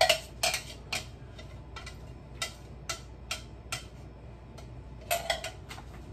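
Light, irregular clicking and tapping of kitchen utensils and containers being handled, about a dozen small knocks at roughly two a second, the loudest at the start.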